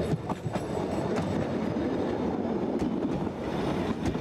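Metre-gauge diesel railcar running past close by, pushing a flat wagon loaded with rails. A steady rumble of engine and wheels, with scattered clicks from the wheels over the track.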